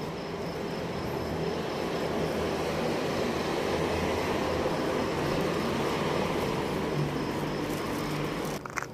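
Street traffic: a motor vehicle's engine and tyre noise swelling to its loudest midway and easing again, over faint, evenly pulsing cricket chirps. The sound drops off abruptly near the end.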